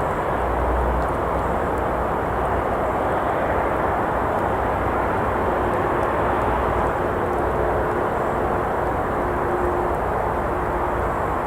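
Steady rush of road traffic from a nearby road, with a faint humming engine tone joining about halfway through and occasional faint crackles from a campfire.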